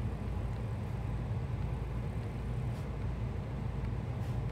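A steady low hum, with a few faint scratches and taps of a pen tip writing on notebook paper.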